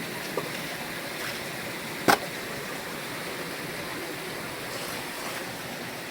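Steady rush of a moorland waterfall and stream, with one sharp knock about two seconds in.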